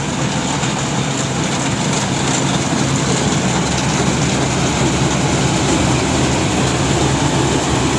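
Engine of a rice harvesting machine running steadily under load, a loud continuous machine noise.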